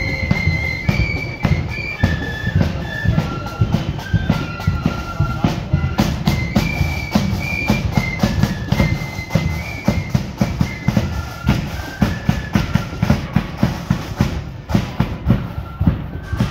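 Marching flute band playing a high, stepwise tune over a steady beat of drums.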